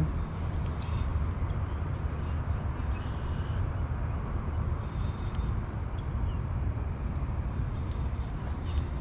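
Steady outdoor ambience: a faint, continuous high-pitched insect drone over a low rumble, with a couple of faint short chirps.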